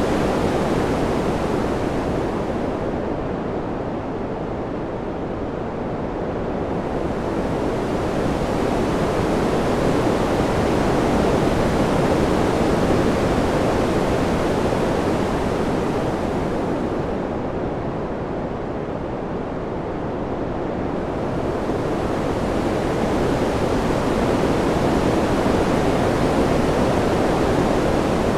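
Wind sound: a steady, even rush that swells and eases in slow waves. The high hiss dies away twice, about 3 to 6 seconds in and again about 17 to 21 seconds in, as the rush softens.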